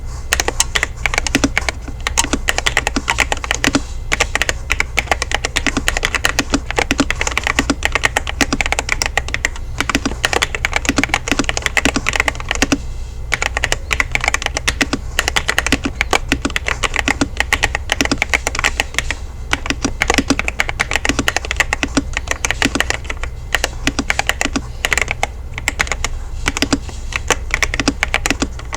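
Fast continuous typing on an LTC Nimbleback NB832 mechanical keyboard: a dense stream of keystroke clacks with a few brief lulls, over a steady low hum.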